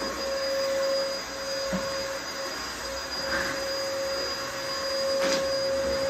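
Vacuum cleaner motor running steadily: a constant whine over a rushing hiss, with a short click about five seconds in.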